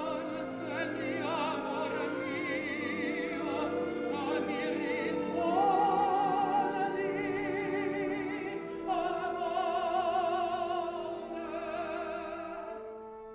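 Operatic singing with a wide vibrato, played from an original, unrestored reel-to-reel tape recording, with held lower notes under the voice; it fades away near the end.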